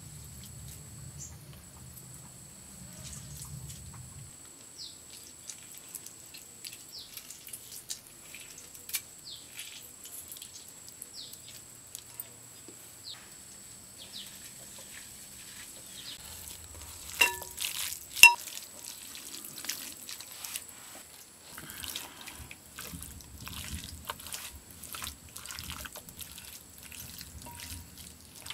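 Lime juice dripping into a glass bowl, then a hand mixing wet spice marinade into whole fish in the bowl, with many light taps and wet handling sounds. Two sharp clinks ring out about two-thirds of the way through.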